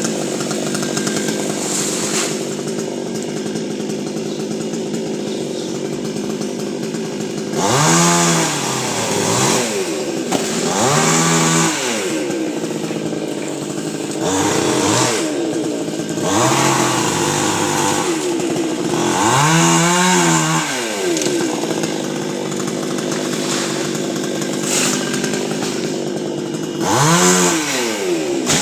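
Chainsaw running steadily, its engine revved up and back down five times, each rev lasting a second or two.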